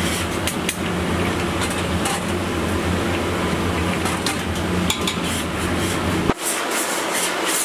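Oil sizzling and bubbling in a large iron kadai as dough balls deep-fry, with frequent sharp metallic clinks of a ladle against the pan over a steady low hum. The low hum drops out suddenly about six seconds in.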